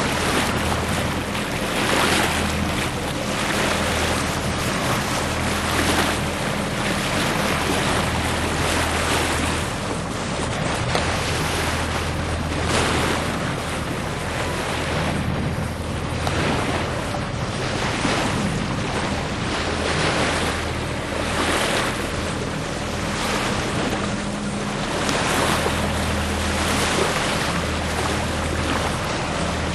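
Wind buffeting the microphone and water rushing and splashing past a sailboat's hull while under sail, surging every second or two.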